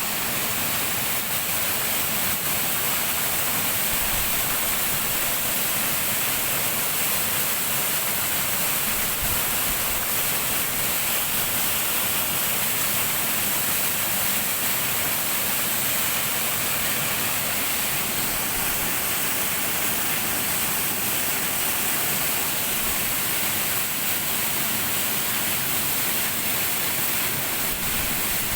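Waterfall: water pouring and splashing in a steady, unbroken rush with plenty of hiss.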